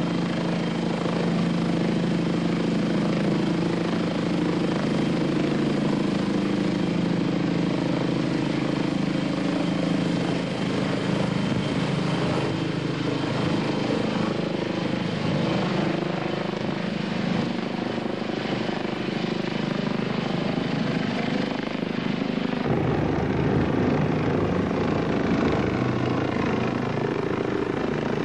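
Helicopter running steadily overhead, carrying a sling load on a long line. The sound changes abruptly about 23 seconds in.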